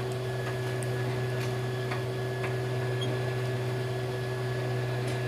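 Desktop FDM 3D printer running mid-print: a steady hum from its fans and motors, with a faint high tone and a few faint ticks.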